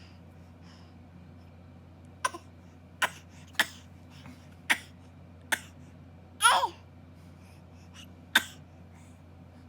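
A four-month-old baby coughing: seven short, sharp coughs spread over several seconds, starting about two seconds in. The sixth cough is longer and drops in pitch.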